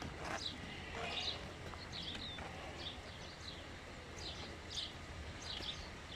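Small birds chirping: short, high chirps repeated about once or twice a second, over a steady low hum.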